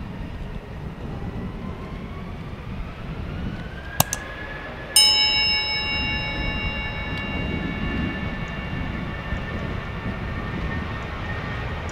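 Jet aircraft engine noise: a steady rumble with a whine that rises in pitch and then holds steady. A sharp click comes about four seconds in, followed a second later by a bell-like metallic ring that fades slowly.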